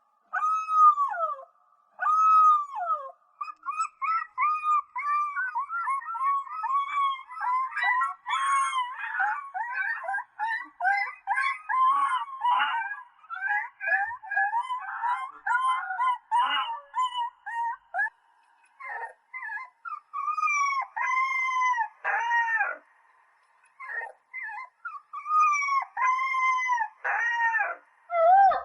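Puppies howling in high calls that rise and fall. The calls come singly at first, then several overlap in a dense chorus, with brief pauses between bouts.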